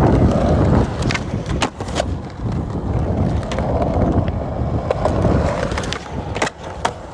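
Skateboard wheels rolling on concrete with a continuous rumble, loudest at the start, broken by several sharp clacks of the board and trucks hitting the ground.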